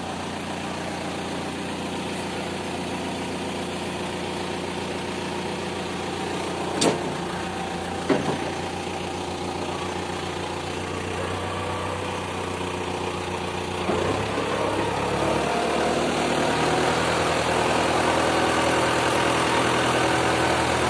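Tractor engine idling steadily, with two sharp knocks a little over a second apart near the middle. About two-thirds of the way through, the engine note changes and it runs louder.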